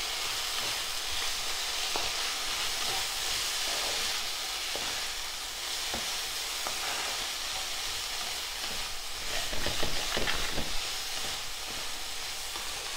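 Green beans, carrots and tomato sizzling steadily as they are stir-fried in a nonstick frying pan, the slotted spatula scraping and tapping the pan now and then. A run of louder clatter comes about nine to ten seconds in.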